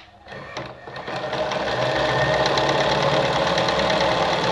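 Singer 306M sewing machine stitching a straight seam through fabric. It starts with a few separate strokes, speeds up within about two seconds and then runs steadily at a fast needle rate.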